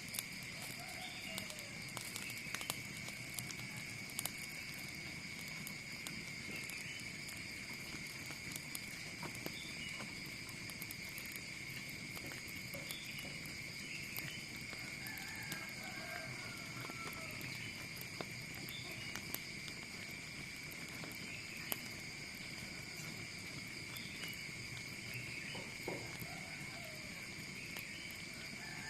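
Steady high-pitched insect chorus, crickets-like, with a few short bird calls and scattered sharp clicks and crackles.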